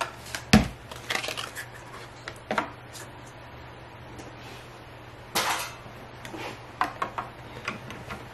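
Paper and die-cutting pieces being handled on a craft table: scattered clicks and taps, a solid thump about half a second in, and a short paper rustle about five seconds in. A steady hiss of rain runs behind.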